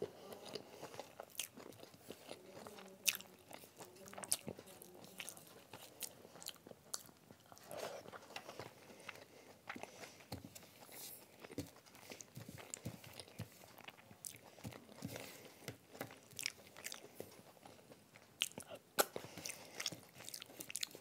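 A person chewing a mouthful of rice and egg curry eaten by hand, close to the microphone, with frequent sharp mouth clicks at irregular intervals.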